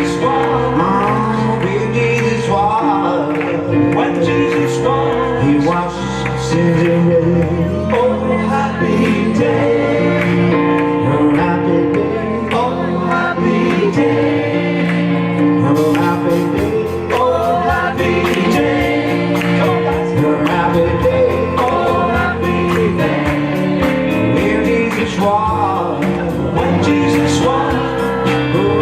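Gospel music: a choir singing over steady instrumental accompaniment.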